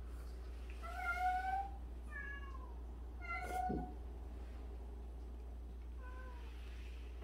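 Domestic cats meowing: four short meows, the loudest about a second in and another around three and a half seconds in, with a fainter, falling one near the end.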